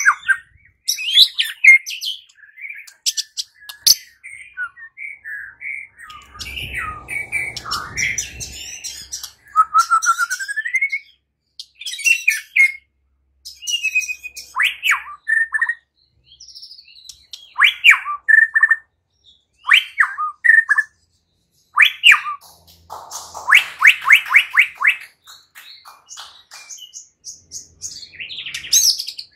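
White-rumped shama singing a long, varied song of loud whistles, chattering notes, slurred downward strokes and rapid trills, phrase after phrase with short pauses between. A brief low rustle comes partway through.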